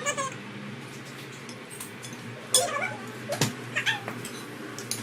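Two short, high-pitched vocal calls that bend in pitch, about a second apart, over a steady low hum.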